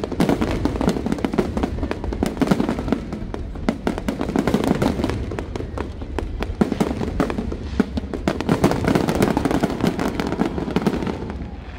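Fireworks display: a dense barrage of aerial shells bursting and crackling in rapid succession, over music playing with the show.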